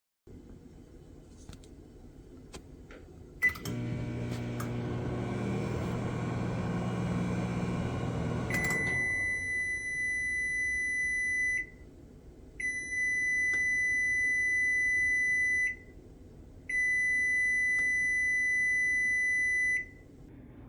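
Frigidaire Gallery microwave oven: a keypad beep starts it, it hums as it runs for about five seconds, then it stops and sounds its end-of-cycle tone, three long, high beeps about a second apart.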